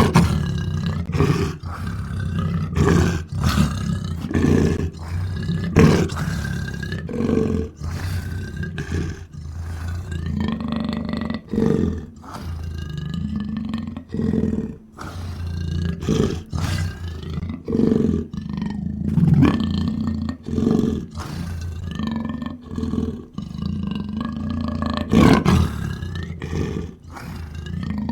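Creature sound effects: a run of low roars and growls, one after another about every second or two, each with a bending pitch.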